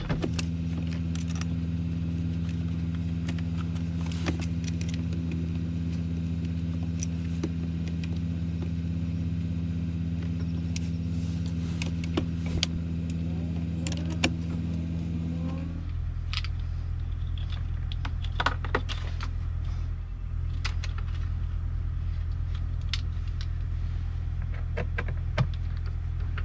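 A steady low idling-engine hum, with a higher tone in it that stops about sixteen seconds in. Small scattered metal clicks and rattles come from hand-fitting a truck cab's heater blower motor and its bolts into the housing.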